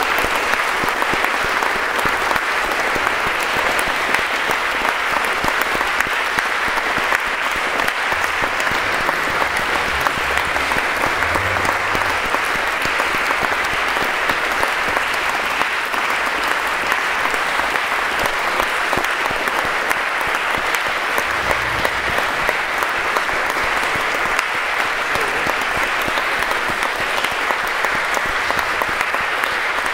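Audience applauding steadily, many people clapping.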